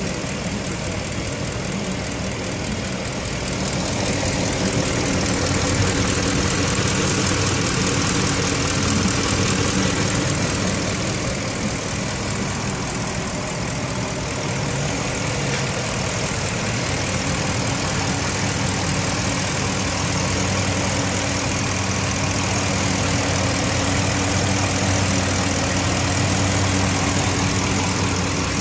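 The 2011 Ford F250 Super Duty's 6.2-litre gas V8 idling steadily, a little louder for several seconds from about four seconds in.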